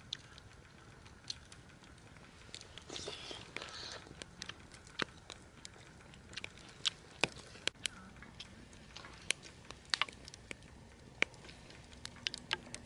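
Firewood crackling and popping in a wood-burning stove: irregular sharp pops, with a short rustling stretch about three seconds in.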